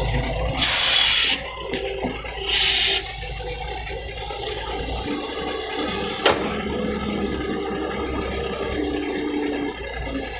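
Doosan DX140W wheeled excavator's diesel engine running under hydraulic load as the machine swings and works its boom. Two short, loud rushing hisses come in the first three seconds, and a single sharp knock a little after six seconds in.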